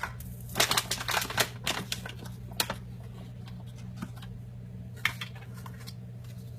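Borax powder poured from a measuring cup into a plastic container: a dense run of rustling and light clicks for about two seconds, then a few single taps of the cup against the container.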